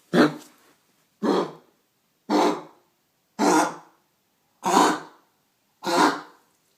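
A pet coughing in a run of six short coughs, about one a second, with a sore, irritated throat.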